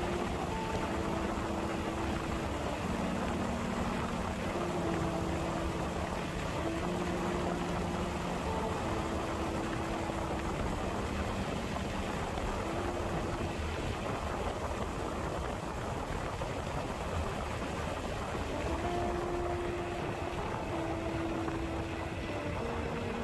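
Steady rushing wind and engine noise of a ride, with a faint melody of background music in slow, held notes that drops out for a while in the middle and returns near the end.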